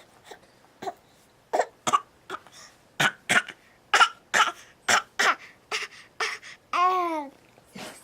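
A baby babbling in a string of short, sharp, breathy vocal bursts, then one longer vocal sound with falling pitch near the end.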